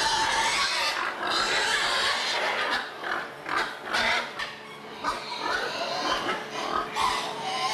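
Several domestic pigs grunting and squealing, with no break across the stretch.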